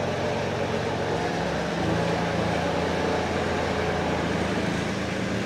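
Preet 2649 mini tractor's three-cylinder diesel engine running steadily as the tractor moves slowly forward.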